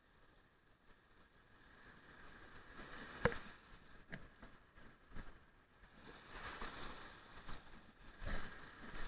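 Faint sea water washing and sloshing, swelling from about halfway through, with a sharp knock about three seconds in and a few lighter bumps after it.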